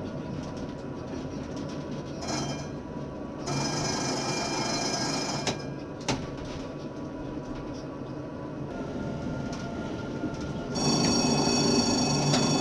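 Electric tram running on street track, heard from the cab: a steady rumble with high electric whines that switch on and change pitch abruptly a few times, loudest near the end.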